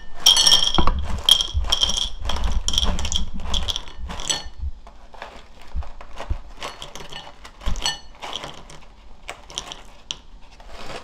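Dried mussels pouring out of a packet and clattering into a porcelain bowl: a dense run of small hard clicks and clinks for the first four seconds or so, thinning to scattered clinks as the last pieces drop.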